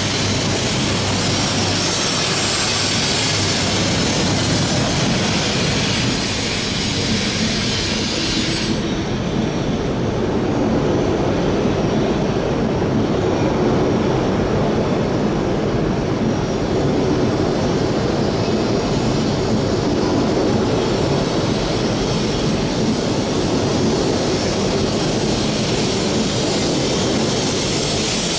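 Coupled E3 and E5 Shinkansen train running past the platform, with the steady rumble of wheels and running gear. A high hiss drops away about nine seconds in, leaving the lower rumble.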